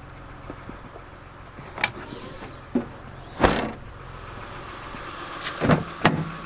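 Minivan rear hatch shut with a solid thud about three and a half seconds in, after a few lighter knocks, then two clicks and a knock near the end as a side door handle is pulled and the door opened. A steady low hum runs underneath.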